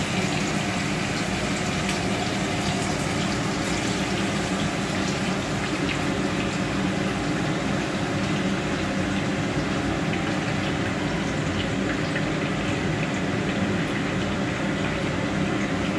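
Beef short ribs sizzling as they go into hot olive oil in a pan on a gas burner: a steady, even hiss with faint scattered crackles over a low steady hum.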